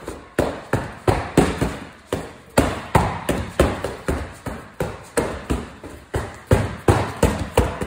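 Boxing gloves smacking hand-held strike pads in rapid punch combinations, about three hard hits a second, with a short pause about two seconds in.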